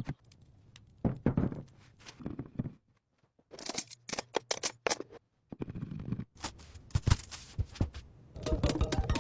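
Irregular sharp clicks and short scraping sounds with pauses between them, like handwork on a material; background music comes in near the end.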